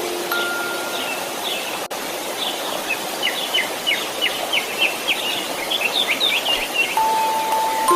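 Steady white-noise hiss with small birds chirping over it, building to a quick run of short, high chirps in the middle, from about three seconds in until about seven seconds. A single soft chime note sounds near the start and another near the end.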